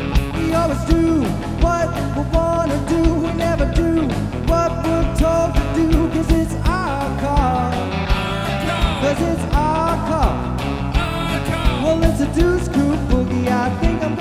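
Rock-and-roll boogie played live by a band, in an instrumental passage: electric guitar lead lines that bend and slide in pitch over a steady drum beat and bass.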